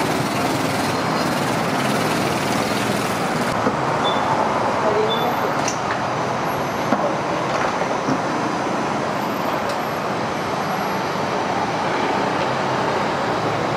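Steady street traffic noise: motor scooters and cars passing in a busy street, with a few faint short clicks.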